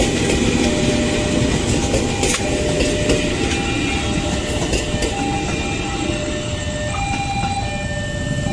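KRL electric commuter train passing close by: a steady rumble of steel wheels on the rails, with sharp clicks as the wheels run over the rail joints.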